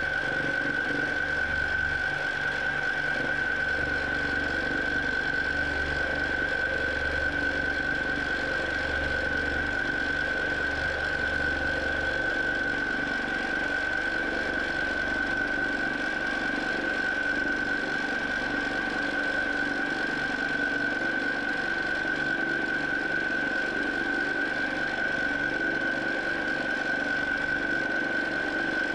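Q'nique 19 longarm quilting machine running steadily while stitching free-motion quilting, with a constant high whine over its low mechanical hum. The low hum drops away about twelve seconds in.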